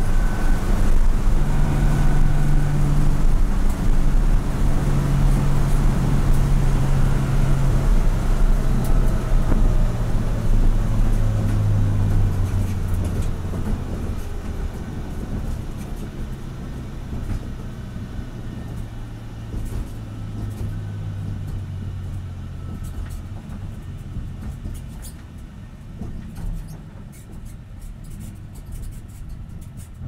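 BMW M235iR race car's turbocharged inline-six and road noise heard from inside the caged cabin as the car coasts down from speed on light throttle, engine revs dropping toward idle. The sound fades steadily as the car slows to a crawl.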